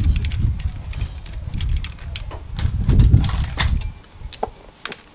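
Small metal motorcycle engine parts being handled and fitted by hand on the open crankcase: scattered metal clinks and light knocks over two stretches of low rumbling handling noise. The rumbling stops about four seconds in, leaving a few sparse clicks.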